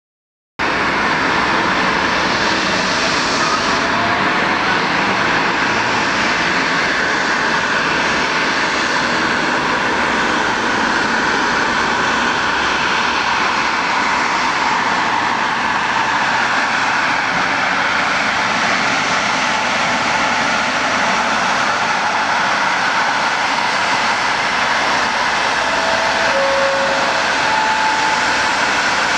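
Airbus A320-211 airliner's CFM56 turbofan engines heard from afar as it comes in on final approach: a steady jet noise that starts abruptly about half a second in.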